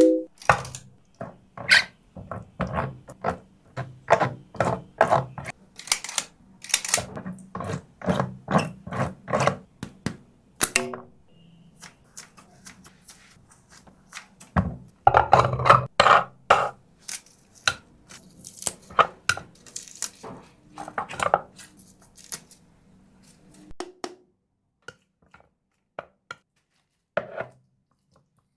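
Dog food being prepared by hand: a run of irregular sharp knocks and clicks of cutting and of dishes being handled, over a low steady hum. The hum stops near the end, and the knocks thin out to a few taps.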